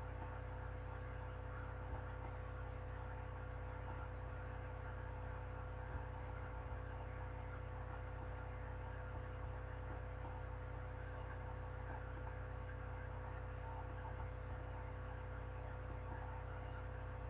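Steady low electrical hum with a faint hiss, unchanging throughout: the background of the recording during a silent pause.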